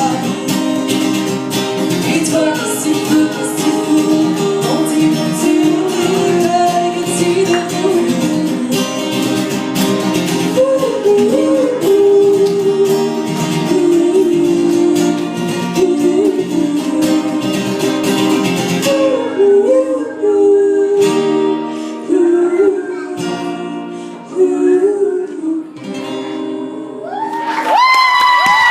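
Live pop song played by a band with guitar and a woman singing. About 19 seconds in the backing thins out and the song winds down, and near the end the audience breaks into cheers and high whoops.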